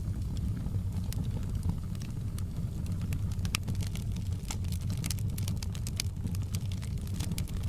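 Fireplace fire crackling: irregular sharp pops and snaps over a steady low rumble of burning.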